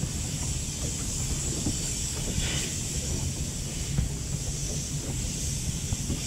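Steady wind noise on the microphone at sea, a low rumble under a constant high hiss, with a brief rush of noise about two and a half seconds in.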